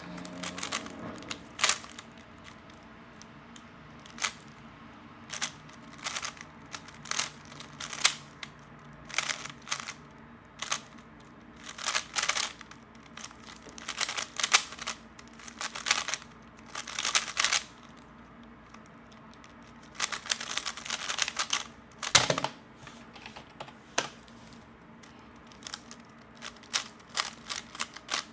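A 3x3 speedcube being turned fast: plastic layers clicking and clacking in quick flurries, broken by short pauses.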